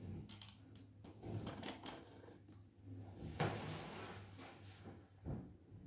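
Faint knocks and rustling from handling a cat over a plastic grooming tub. There are a few quick clicks at the start, a brief hiss-like rush of noise about three and a half seconds in, and a soft thump near the end, over a low steady hum.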